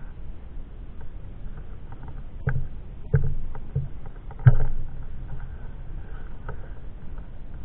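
Sea kayak being paddled: four sharp knocks from the paddle strokes between about two and a half and four and a half seconds in, the last the loudest, over a steady low rumble.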